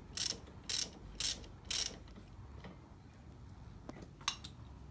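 Ratchet wrench clicking in short back-strokes about twice a second as the spark plug is unscrewed from a Vespa PX 150's cylinder head. The strokes stop about two seconds in, and a single sharp click follows near the end.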